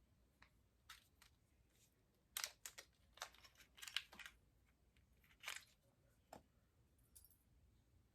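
Faint handling noises of an unboxing: packaging crinkling and small parts clicking, with a cluster of sharp clicks and rustles a couple of seconds in and a few single clicks later.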